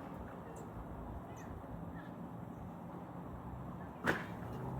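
Quiet outdoor ambience with a few faint, short bird chirps, broken about four seconds in by a single sharp crack or snap.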